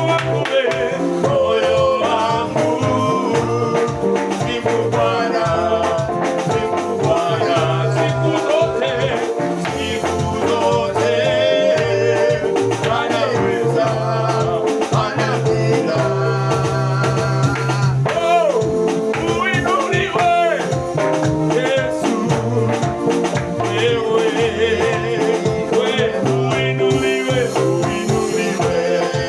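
Upbeat praise music: singing over instruments with a steady beat and bass line.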